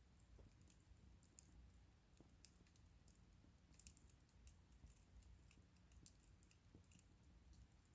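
Wood bonfire crackling faintly: small, irregular pops and ticks, several a second.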